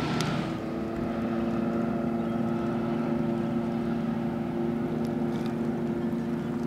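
A motor running at a steady, unchanging pitch: a constant droning whine.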